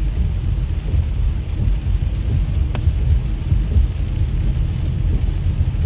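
Heavy rain on a moving car and its tyres on the wet road, heard from inside the cabin as a steady low rumble with a hiss above it. A single sharp click comes about halfway through.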